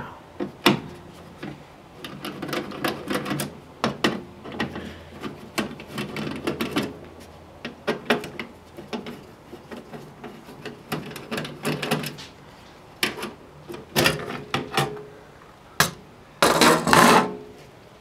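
Irregular metallic clicks, knocks and short scrapes as the sheet-metal cover and screws of a Sun Fire V480 server chassis are worked loose by hand and with a tool. About a second before the end a louder, longer scrape sounds as the cover panel slides off the chassis.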